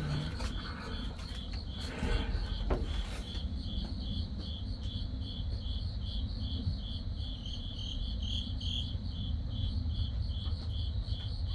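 Cricket chirping steadily, about two or three short chirps a second, over a low rumble, with a few faint rustles and clicks in the first few seconds.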